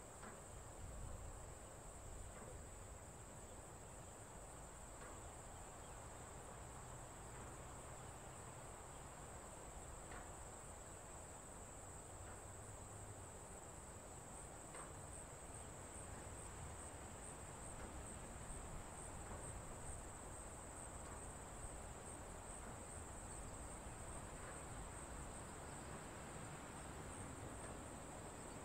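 Faint insect chorus: a steady, high-pitched chirring with a slight pulse, and a few soft ticks now and then.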